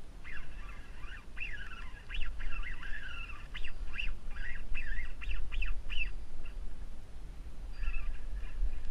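Birds calling: a fast run of short calls that sweep up and down in pitch for about six seconds, then a few more calls near the end.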